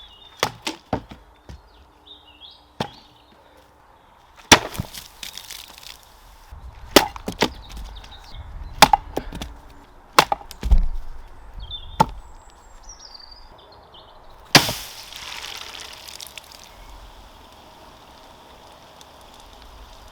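A homemade throwing dagger made from brass/copper plumbing fittings and an SDS masonry drill bit striking a wooden target: a series of sharp wooden knocks and thuds at irregular intervals. Two of the strikes are followed by a longer metallic ring.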